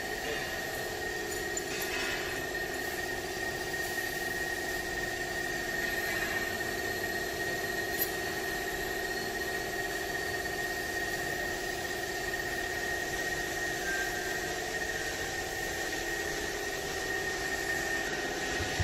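Steady mechanical hum like an engine idling, with a constant high whine over it, unchanging throughout.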